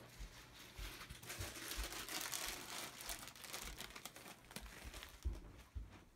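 Faint rustling and crinkling of fabric and handling noise from a handheld camera being moved about. Scattered low knocks run through it, and a sharper thump comes near the end.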